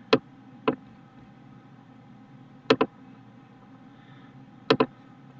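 Sharp, isolated clicks of a computer mouse and keyboard as text is selected, copied and pasted: two single clicks in the first second, then two quick double clicks about two seconds apart, over a faint steady room hum.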